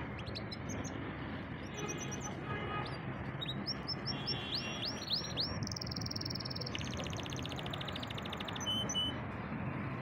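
Domestic canary singing: series of quick rising notes, then a steady high trill and a faster trill, stopping about nine seconds in, over steady low background noise.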